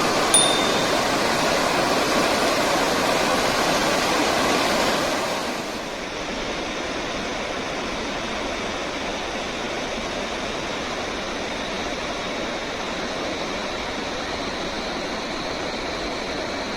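Floodwater rushing, a steady roar of turbulent water. About six seconds in it drops to a quieter, duller rush.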